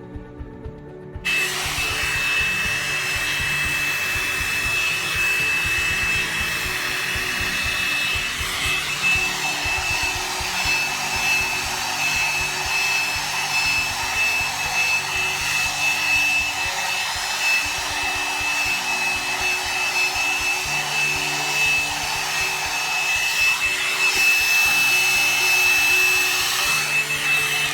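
A round-brush hot-air hair dryer, a knockoff of the Revlon One-Step, switches on about a second in and runs steadily, its fan noise carrying a steady high whine, then cuts off at the end.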